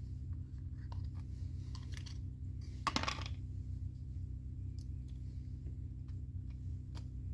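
Small hard parts being handled: scattered light clicks and one short clatter about three seconds in, over a steady low hum.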